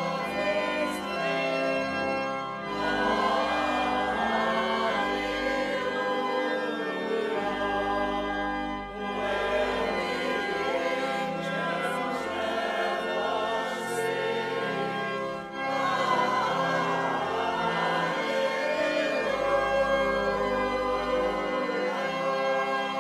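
A hymn sung by many voices together with organ accompaniment, in long held phrases with a short break between lines about every six seconds.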